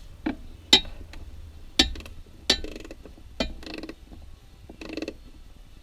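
Ratchet and 1/2 inch socket snugging the battery-cable nut on a starter solenoid terminal: a handful of sharp metallic clinks and knocks, with three short runs of ratchet clicking in the second half.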